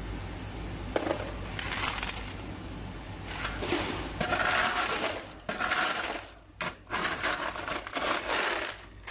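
Clear tube ice clattering and crunching as a hand and a plastic basket stir through a heaped tub of ice cubes. It comes in several rattling bursts, loudest in the second half.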